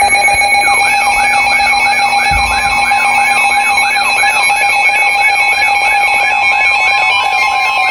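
Emergency Alert System attention signal over NOAA Weather Radio: a steady, harsh two-tone alarm heralding a severe thunderstorm warning. From about a second in, a second alarm warbles over it in rapid sweeps, about four a second.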